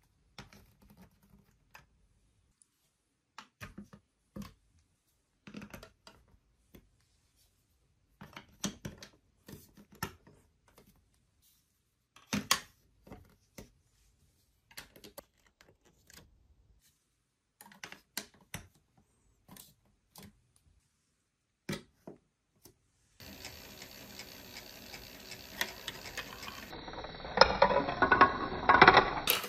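Plastic toy blocks and figures clicked and set down on a baseplate one at a time: sparse separate clicks and knocks. Near the end, plastic balls roll and clatter down the plastic marble-run track over a steady background hiss.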